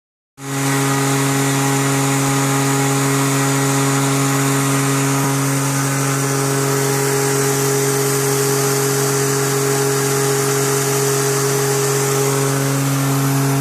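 Milling machine end mill cutting an aluminium plate: a steady pitched hum over a hiss of compressed air from a fogless coolant mister spraying the cut.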